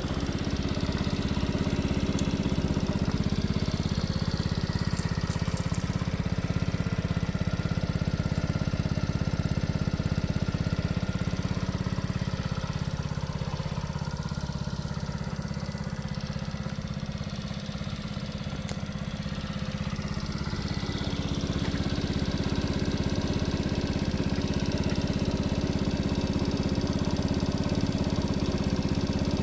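Lifan 72cc single-cylinder four-stroke minibike engine idling steadily, dipping slightly quieter for a few seconds midway.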